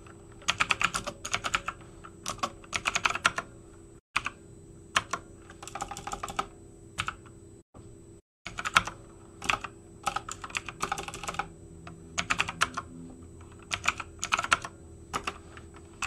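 Typing on a computer keyboard: bursts of rapid keystrokes separated by short pauses, over a faint steady hum.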